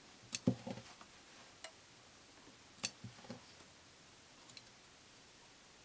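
Large quilting scissors snipping the stitches of a seam in a quilt binding strip, unpicking it: a few scattered sharp snips and clicks, the loudest near the start and about three seconds in.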